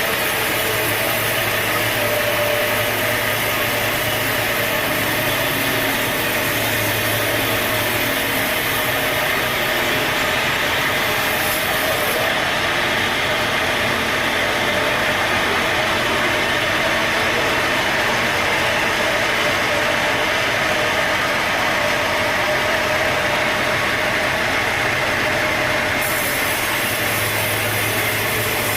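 Sawmill running steadily: engine and saw machinery making a constant drone with a steady whine, likely while sawing an oak log.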